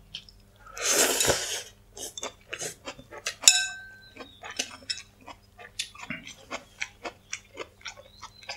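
A long slurp of noodles about a second in, then a sharp ringing clink of chopsticks set down against a ceramic bowl, followed by chewing with many small wet mouth clicks.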